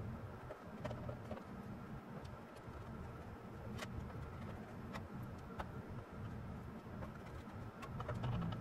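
Faint, irregular clicks and light metal handling noise of a screwdriver driving motherboard screws into the case's standoffs, over a low steady hum.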